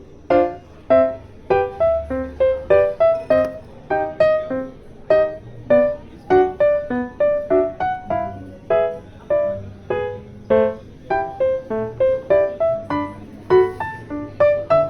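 Background music: a gentle piano melody of short, quickly fading notes, about two to three a second, over a soft bass.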